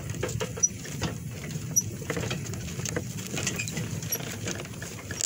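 Horse-drawn cart moving along behind a walking draft mare: irregular knocks, clicks and rattles from the cart and its wooden shafts over a low steady rumble.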